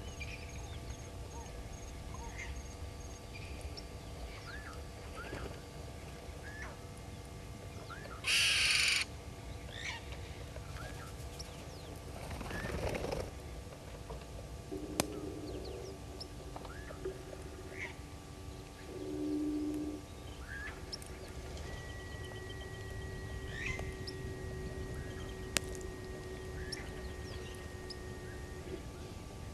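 Bush waterhole ambience: scattered short bird calls and chirps over a steady background, with two short low calls in the middle. About eight seconds in, a brief loud rushing noise stands out above the rest.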